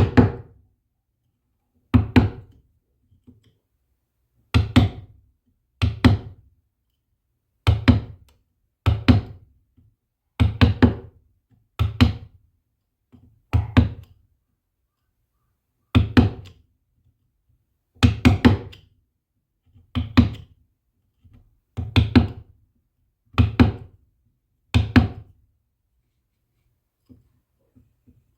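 A series of about fifteen solid knocks, struck every one and a half to two seconds at an uneven pace. Each knock rings briefly, and some land as quick doubles. They stop a few seconds before the end.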